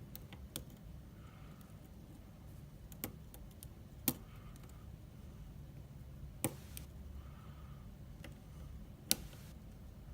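Faint, sparse sharp clicks of a hook pick and tension wrench working the spool pins of an Iseo euro cylinder lock, about five clicks spread out, the loudest about four, six and a half and nine seconds in.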